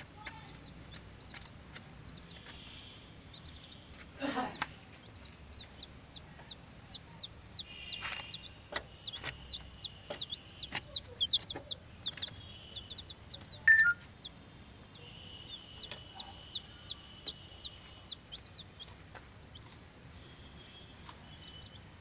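Baby chicks peeping: runs of short, high-pitched cheeps at about four a second, pausing and starting again. A sharp click about fourteen seconds in is the loudest moment.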